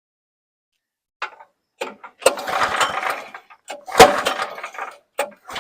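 Recoil pull-starter of a Briggs & Stratton engine being yanked several times, each pull a short whirring scrape, with a sharp clack about four seconds in. The engine turns over but does not fire; the owner suspects stale gasoline with water in it.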